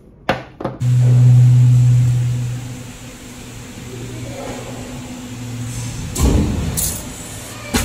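Factory-floor noise from rubber-moulding press machinery: a steady low machine hum with a hiss over it, broken by louder clattering about six seconds in and again near the end.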